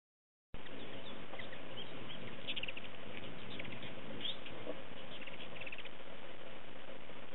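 Several hummingbirds chattering as they chase one another around a nectar feeder: short runs of quick, high squeaky chips over a steady hiss.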